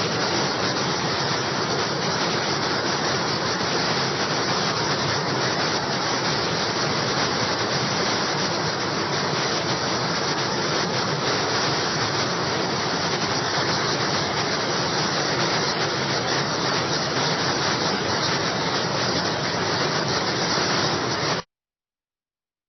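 Waterfall rushing with a steady, even roar of falling water, cutting off suddenly near the end.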